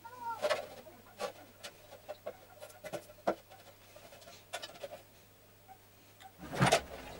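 Sheet-aluminium dust-collector hood being handled and fitted onto a belt grinder: scattered light knocks and clatters of thin metal, with a louder clatter near the end.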